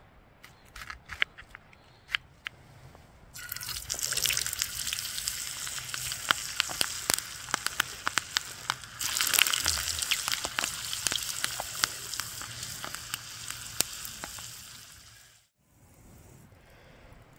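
Dense crackling and sizzling, full of sharp pops, that starts about three seconds in after a few scattered clicks and cuts off suddenly near the end.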